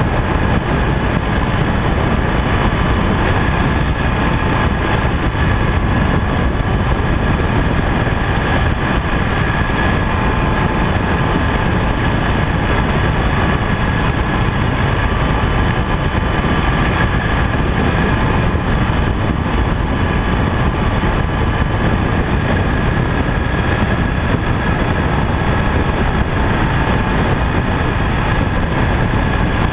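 BMW R1200GS LC motorcycle being ridden, its boxer-twin engine running steadily under a loud, even rush of noise.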